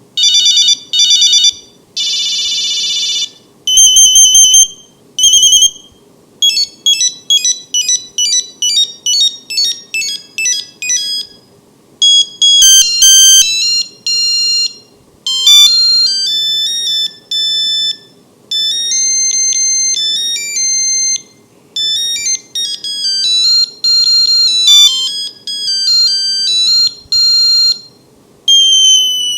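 Nokia 2100 monophonic ringtones playing one after another, each a short, high, beeping melody a few seconds long with brief gaps between them. The first few are quick trills and repeated beeps; the later ones are longer tunes.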